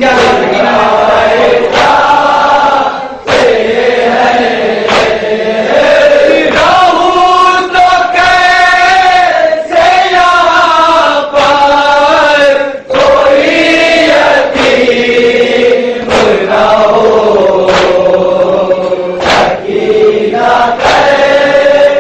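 Men chanting an Urdu nauha, a mourning lament, in a loud steady melody. Sharp hand-on-chest matam strikes keep time, about one every second and a half.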